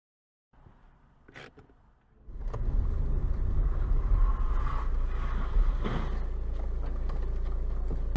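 A car driving, heard as a steady low rumble of engine and road noise that starts about two seconds in, after a near-silent gap.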